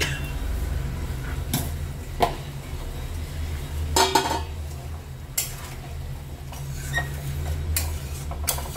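Metal kitchenware clinking and knocking: utensils and pans being handled against an aluminium kadai, including a spatula stirring a curry near the end. The clinks are a few scattered ones over a steady low hum.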